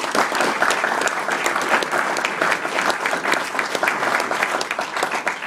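Audience applauding: many people clapping together in a dense, even patter.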